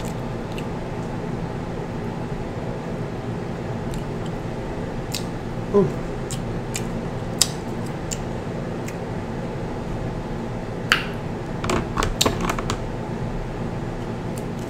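Scattered sharp cracks and snaps of crab-leg shell being broken apart by hand, in a cluster a little after halfway. There is a short wet mouth sound about six seconds in. A steady fan hum runs underneath.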